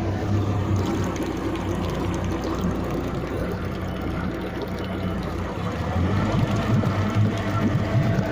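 Outboard motor running steadily with an even engine note over a wash of churning water.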